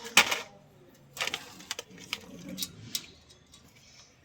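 A series of irregular sharp clicks and knocks: a loud one just after the start, then several more, spaced unevenly, over the next three seconds.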